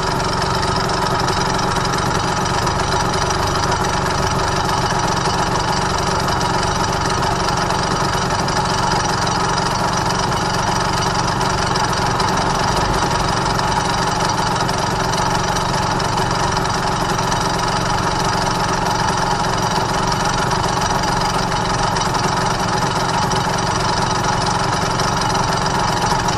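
Honda NSR250R's two-stroke V-twin idling steadily at a standstill, with a rough, broken-sounding note.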